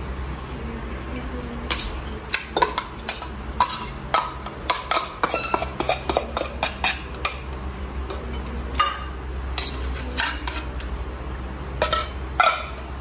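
Metal spoon scraping and knocking inside tuna tins as the drained tuna is emptied into a glass bowl: a run of quick clinks and scrapes, thick in the first half, thinning out, then a few more near the end.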